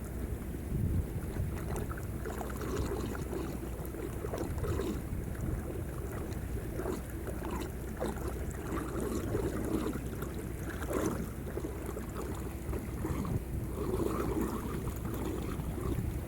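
Turbulent water churning and splashing over a steady low rumble.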